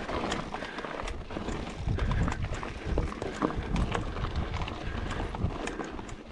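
Mountain bike descending a rough trail: tyres crunching over dirt and rock, with frequent sharp knocks and clicks as the bike rattles over the bumps.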